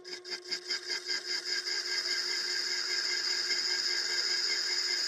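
A homemade small CNC lathe cutting an aluminium workpiece: a high-pitched cutting noise that pulses with each turn at first, the pulses quickening and merging into a steady high whine about two seconds in, over a steady hum from the machine.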